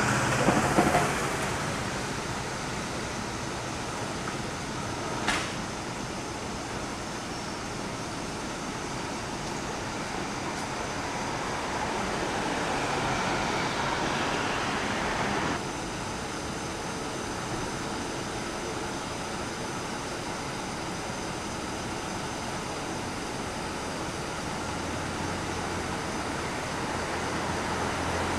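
City street traffic noise, with vehicles passing close by: one loud in the first second and another building up and cutting off sharply a little past the middle. There is a sharp click about five seconds in, and a low steady hum comes in near the end.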